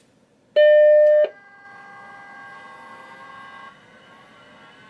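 Macintosh 512K startup beep: one loud, steady, buzzy tone lasting under a second as the machine powers on. A fainter whine of several steady tones follows, one slowly rising, as the HyperDrive's MFM hard drive spins up; it shifts about three and a half seconds in.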